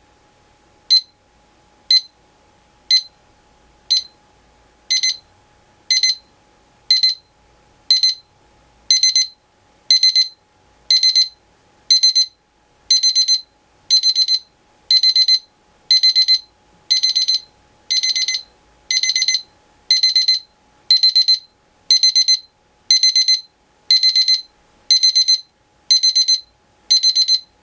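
Seiko SQ786S alarm clock's electronic alarm beeping, high-pitched, once a second. The first few are short single pips; from about five seconds in each becomes a longer burst of rapid beeps, and the bursts grow longer again by about ten seconds in.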